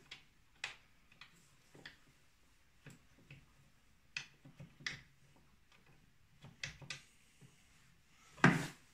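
Scattered light metallic clicks and taps of a 2014 Polaris RMK's chain case gears and chain being handled by hand, with one louder clunk near the end.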